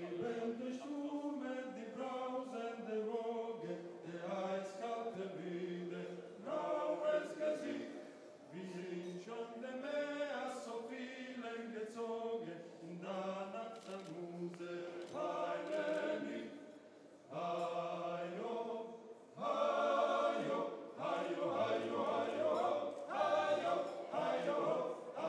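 A male vocal ensemble singing a cappella, several voices in harmony, in sung phrases separated by short breaths.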